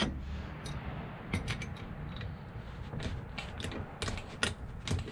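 Scattered light clicks and knocks from a rebuilt VW TDI tandem pump being gripped and handled on a wooden table while its shaft is strained at by hand; the shaft is so tight after the rebuild that it barely turns.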